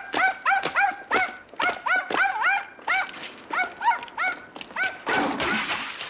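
A dog yapping in quick runs of short barks, several a second, with sharp knocks between them and a short rush of noise about five seconds in.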